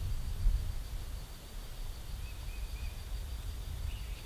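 Wind buffeting the microphone as a low rumble that starts suddenly, with three faint bird chirps about two seconds in.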